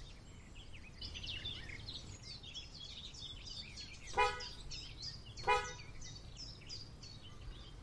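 Outdoor ambience of small birds chirping over a low steady rumble, with two short tooting tones about a second and a half apart near the middle.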